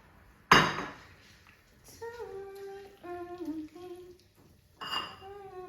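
A woman humming a tune in held, stepping notes. A loud, sharp clatter comes about half a second in, and a shorter one near the end.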